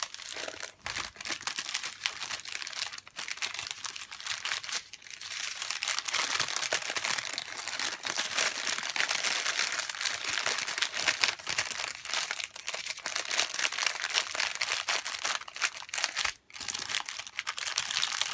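Plastic packaging crinkling and rustling as it is handled, a dense crackle that grows busier about a third of the way in and pauses briefly near the end.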